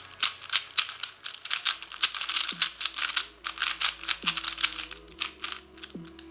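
A YJ Guansu 4x4 speedcube being turned by hand: a rapid, irregular run of plastic clicks and clacks, several a second. These are its first turns out of the box, where it feels a little stiff and locks up.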